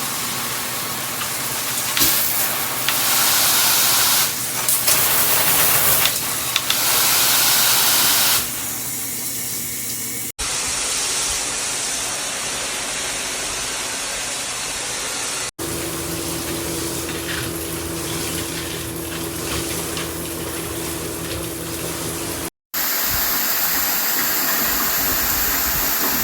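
JOMST handheld shower head spraying water, a steady hiss that changes in strength and character abruptly several times, loudest a few seconds in.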